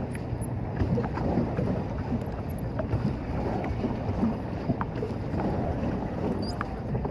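Wind buffeting the microphone over water splashing and lapping around a pedal boat as it moves across a lake, with small irregular splashes throughout.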